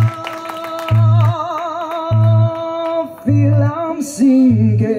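Live band music: a woman sings long held notes with vibrato over a bass guitar striking low notes about once a second. A cymbal hit comes about four seconds in.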